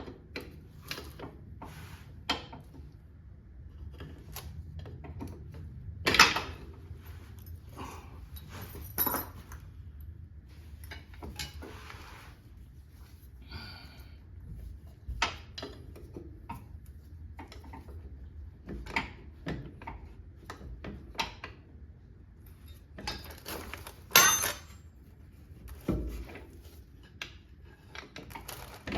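Irregular metallic clinks, clicks and knocks of hand tools and parts being handled during car axle work, over a low steady hum. The loudest knocks come about six seconds in and again about twenty-four seconds in.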